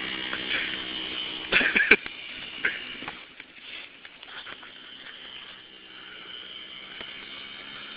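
Small gas engine of a homemade motorized chopper bicycle running, with a few loud short bursts about a second and a half in, then growing faint after about three seconds as the bike rides off.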